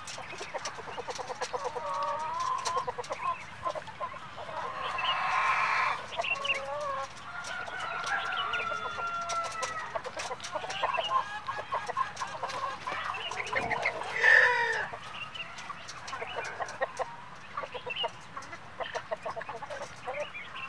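A flock of Black Australorp chickens clucking and calling throughout, with one louder call about two-thirds of the way through.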